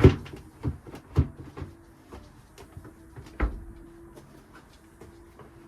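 The moped's seat and its latch being pushed and knocked: a string of hollow clunks and clicks in the first second and a half, then another loud clunk about three and a half seconds in. The seat is stuck, its front hinge seized after years of disuse.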